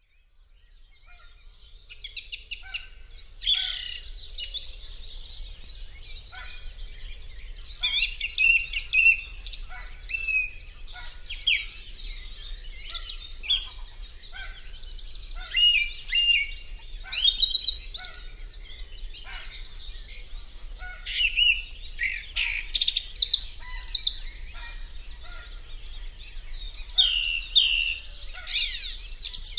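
Several songbirds singing at once in a spring chorus: overlapping quick, high-pitched phrases and chirps, fading in over the first few seconds.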